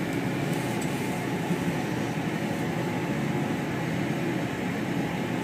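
Steady low running noise of a passenger train in motion, heard from inside the carriage.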